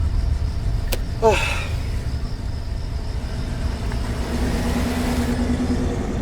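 A car running with a steady low rumble. A sharp click comes about a second in, followed at once by a short falling squeal.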